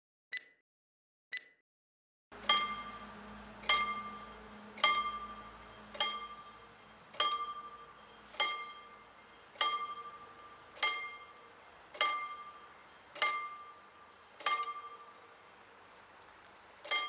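Two short ticks, then a mechanical level-crossing warning bell (Vorläutwerk) striking single blows about every 1.2 seconds, each stroke ringing out and fading before the next, starting about two seconds in. This bell is the crossing's advance warning that the hand-worked barriers are about to come down for a train.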